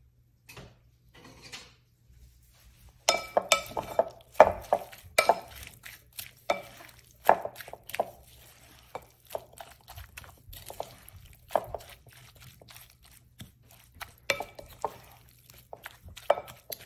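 Wooden spatula stirring and tossing dressed shredded lettuce and onion in a glass bowl, with irregular knocks and scrapes against the glass. It starts about three seconds in.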